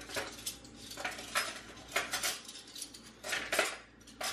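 Dishes and metal cutlery clinking and knocking together as they are handled and washed at a kitchen sink, in a string of irregular short clinks.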